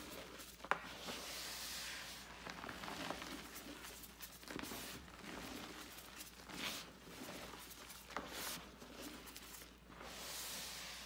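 Hands squeezing, crumbling and sifting loose gym chalk powder: soft crunching and hissing in uneven swells every second or two, with one sharp click about a second in.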